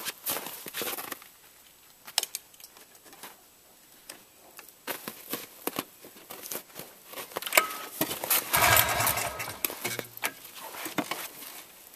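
Clicks and knocks of the controls being handled on a cold Polaris Trail Boss 250 quad, then about eight and a half seconds in a pull on the recoil starter: the cold engine turns over in fast pulses for a second or two and briefly fires without keeping running.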